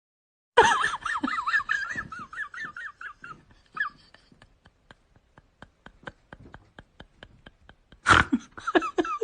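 Comedy sound effect: a high, warbling laugh-like voice in quick repeated swoops that fades into a run of faint quick ticks, then another loud burst near the end.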